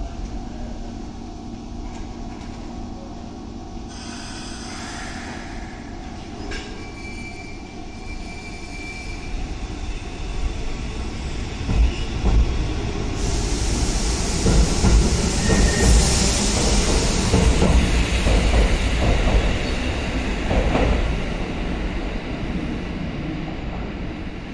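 Kotoden Type 1200 two-car electric train (ex-Keikyu 700) standing with a steady hum, then pulling away from the platform. Its motors and wheels grow louder as the cars pass. A high-pitched wheel squeal is loudest about midway, and the sound then fades as the train leaves.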